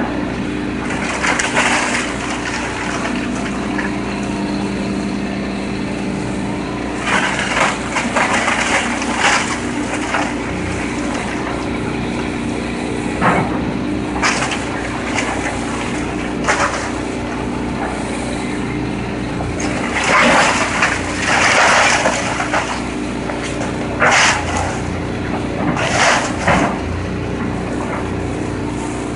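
Heavy demolition machine's diesel engine running steadily, with repeated bursts of crunching and crashing debris as a house is torn down, the longest and loudest about twenty to twenty-two seconds in.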